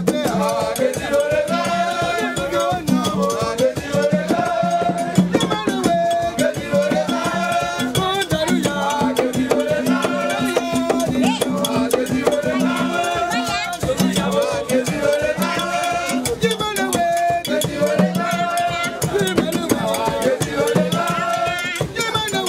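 Live aloukou music: voices singing over tall hand drums and other percussion, in a fast, steady rhythm. A long held note sounds for a few seconds in the middle.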